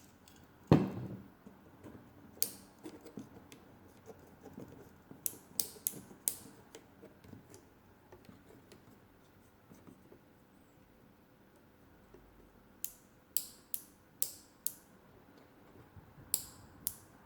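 Small handling noises on a workbench: a knock about a second in, then scattered sharp clicks in small clusters with light scraping, as the radio's small parts and tools are worked.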